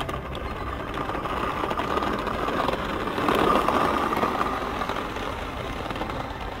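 Small electric motor of a homemade cardboard radio-controlled BTR toy whining steadily as it drives over paving stones. It grows louder about three and a half seconds in as it passes close.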